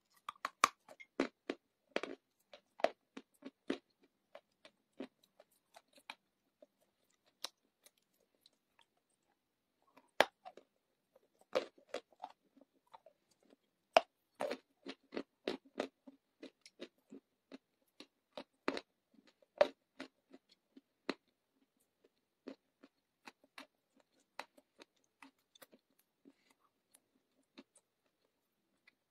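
A person biting and chewing lumps of clay close to the microphone, making a run of short, sharp crunches. The crunches come thickly in the first few seconds and again from about ten to twenty seconds in, then thin out toward the end.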